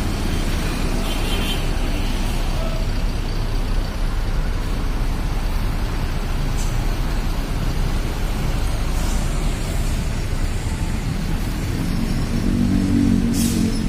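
Mercedes-Benz OH-1626 coach's rear-mounted diesel engine running as the bus moves off slowly, getting louder with rising revs near the end.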